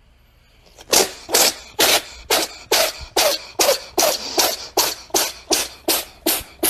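A woman giving short, sharp, breathy coughs one after another in a steady rhythm of a little over two a second, starting about a second in.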